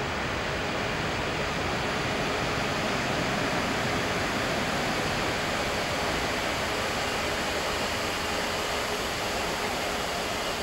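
Steady rushing noise with a faint even hum from a DB Class 141 electric locomotive creeping slowly in along the platform.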